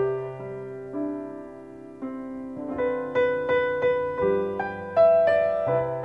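Piano music: single notes and chords struck and left to ring, a melody over lower held notes.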